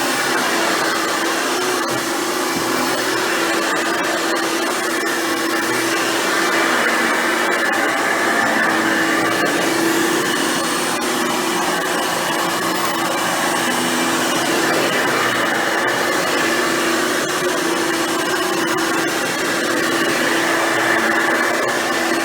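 Hoover Futura Dimension upright vacuum cleaner running steadily, a constant motor hum under a rushing air noise, with slight swells in loudness.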